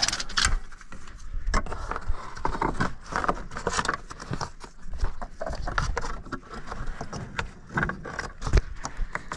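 Irregular scraping, rustling and light knocks of a mechanic's clothing, gloves and boots brushing against the tractor as he climbs about it.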